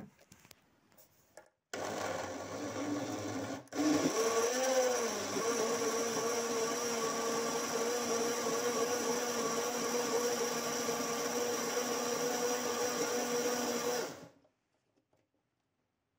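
Countertop blender motor blending a liquid banana and orange juice smoothie. It runs for about two seconds, stops for a moment, then starts again louder, its pitch wavering as it gets up to speed. It then runs steadily and stops about two seconds before the end.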